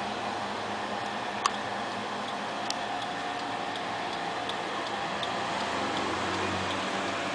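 Motorcycle turn-signal flasher ticking at a regular pace, about one to two faint ticks a second, with one sharper click about one and a half seconds in, over a steady noise.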